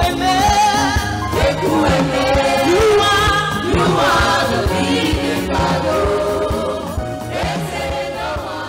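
Live gospel praise music: women singing into microphones over electric bass and electric guitar, with a steady beat. It fades out near the end.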